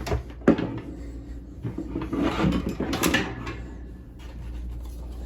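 Equipment being handled and shifted on a wooden desk: two knocks near the start, then a scraping slide a couple of seconds in.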